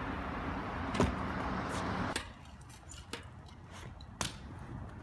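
Stunt scooter's small hard wheels rolling over concrete sidewalk slabs: a steady rolling rumble with a click about a second in, which stops about two seconds in. After it come a few sharp, separate clicks and knocks.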